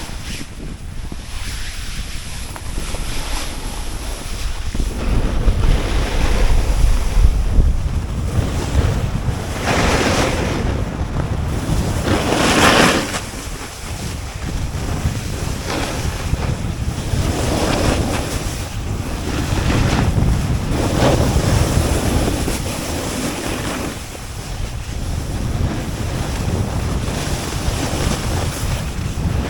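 Snowboard sliding and carving over snow: a rushing scrape that swells with each turn, the loudest surge a little under halfway through, with wind buffeting the microphone.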